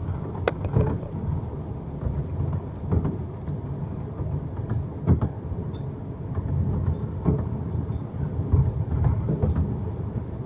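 Ravenglass & Eskdale Railway narrow-gauge train running, heard from on board: a steady low rumble with sharp clicks and knocks every second or two.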